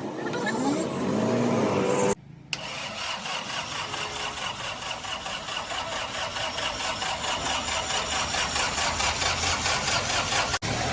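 Rebuilt Fiat 480 tractor's three-cylinder diesel engine running with a steady, even beat after its overhaul. The engine sound comes in after a brief break about two seconds in.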